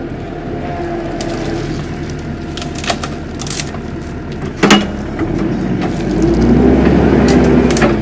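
Kubota compact track loader's diesel engine running while its hydraulic tree shear closes on a sapling; a sharp crack of the trunk being sheared comes a little past halfway, with a few smaller snaps of wood. Near the end the engine and hydraulics work harder and grow louder.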